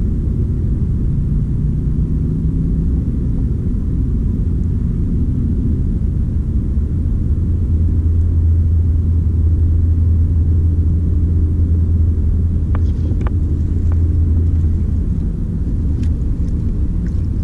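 Steady low rumble, heaviest through the middle, with a few faint ticks late on.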